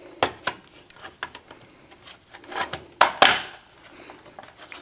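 A Netgear WNR2000 router's plastic top cover being slid into its case and pressed down, giving a series of light plastic clicks and rubbing. The loudest is a sharp click with a short scrape about three seconds in.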